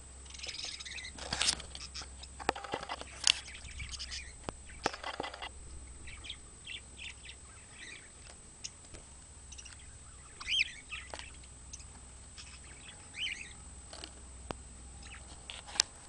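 Pet budgerigars and a cockatiel chirping and chattering. The calls come thick for the first five seconds or so, then thin out to scattered chirps.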